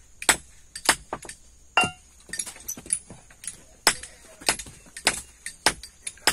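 Irregular series of sharp metallic knocks and clinks as a sledgehammer head is worked onto its new silicone handle, one strike ringing briefly near two seconds in.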